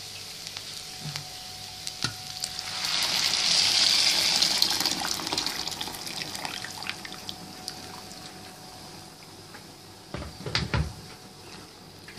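Hot water poured into a pot of spiced rice frying in oil: a rushing, hissing pour that swells from about two seconds in and fades away over several seconds. Near the end there are a few knocks of a spatula against the pot.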